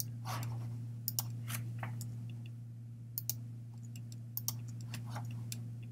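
Irregular, scattered clicks of a computer mouse and keyboard, over a low steady hum.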